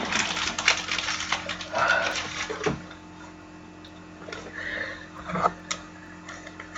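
Trading cards and plastic card sleeves being handled: a quick run of light clicks and rustles over the first few seconds, then a few scattered soft ticks.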